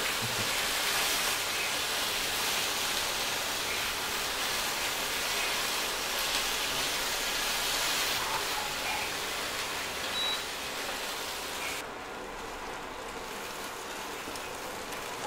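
Corn and green capsicum strips sizzling in a pan while being stirred with a silicone spatula. The sizzle drops off suddenly about twelve seconds in, as the pan comes off the heat.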